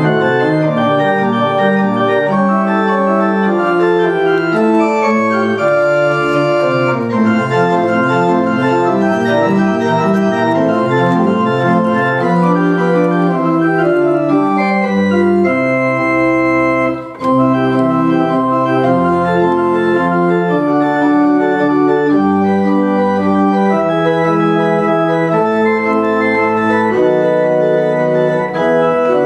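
Pipe organ playing a piece in sustained chords on the manuals. Deep pedal bass notes come in about halfway through, with a brief break just after.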